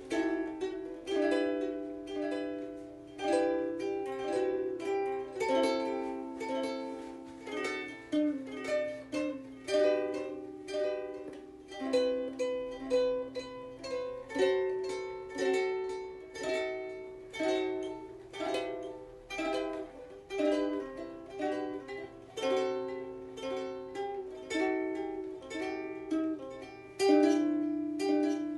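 Ukulele playing a tune, its notes and chords plucked at a steady pace, each ringing briefly and fading.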